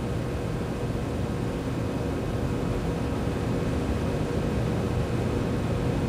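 Steady background hum and hiss, with a faint steady tone running through it and no distinct knocks or scraping.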